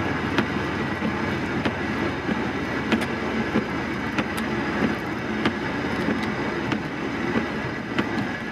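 Steady road and tyre noise of a car driving at expressway speed, heard from inside the cabin, with light clicks at irregular intervals.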